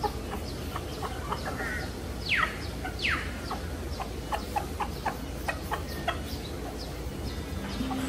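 Chickens clucking in a run of short calls, with two sharp falling squawks about two and a half and three seconds in, over a steady low rumble.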